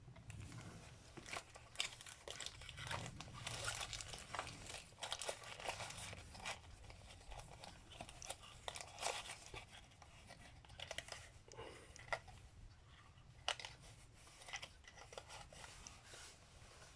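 Faint, scattered clicks and short rustling of small carburetor parts and rebuild-kit packaging being handled on a workbench.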